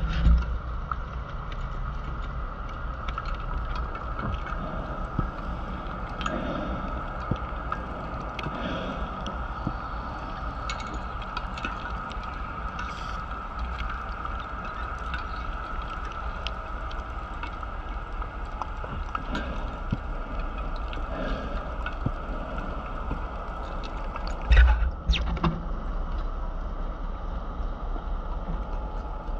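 Underwater sound picked up inside a camera housing: a steady hum and low rumble. About 25 seconds in comes one short loud gurgling burst of bubbles.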